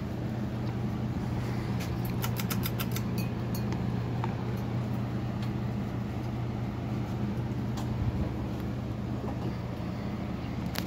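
Encon Monarch 52-inch ceiling fan running, its motor giving a steady hum. A quick run of light clicks comes about two seconds in.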